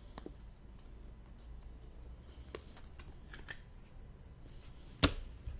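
Trading cards being handled and flipped through: soft, scattered clicks and slides of card stock, with one sharp click about five seconds in.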